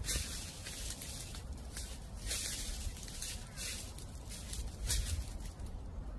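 Footsteps crunching through dry fallen leaves, an uneven crunch roughly every second, over a low steady rumble of wind.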